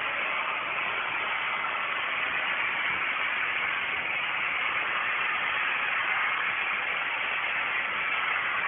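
Hand-held hot air styler (hair dryer brush) running, its fan blowing a steady rush of air with no change in pitch or level.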